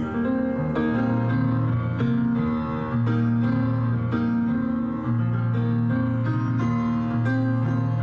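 Instrumental music, with notes struck at an even pace over held low bass notes.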